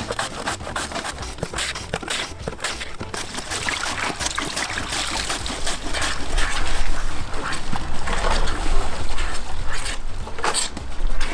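Water running from a hose into a plastic basin while green onions are rinsed by hand in it, with splashing and sloshing. It gets louder about halfway through.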